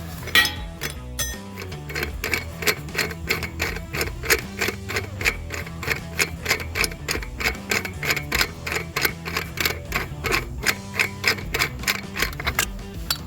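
Steady run of ratchet clicks, about four or five a second, as a ratchet handle cranks a lug nut torque multiplier to turn a stubborn bus lug nut that is coming loose; background music plays underneath.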